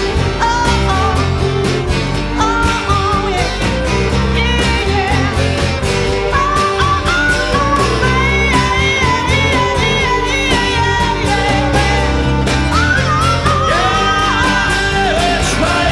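Live country-rock band playing: strummed acoustic guitar, electric guitars and bass, with singing over the top.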